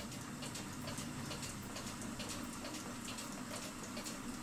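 Faint, irregular small clicks and light taps, several a second, as hands work nails loose in a wooden cuckoo clock case, over a steady low hum. A louder knock comes at the very end.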